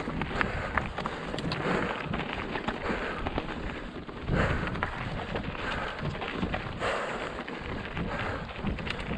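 Wind buffeting the microphone of a mountain bike's ride camera at speed, over the crunch of tyres on dirt and loose stones and the clatter of the bike over rocks. A stronger gust of wind comes about halfway through.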